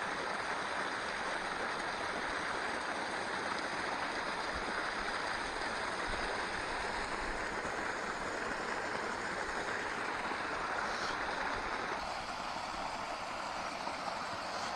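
Steady rush of creek water spilling down a small cascade into a pool, a little quieter from about twelve seconds in.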